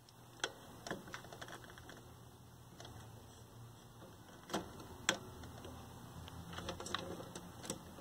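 Scattered light clicks and taps of a screwdriver on the metal chassis of a 1973 Admiral color TV as a part that is fighting back is worked loose, with the sharpest clicks about half a second in and around four and a half and five seconds in, and a run of small ticks near the end.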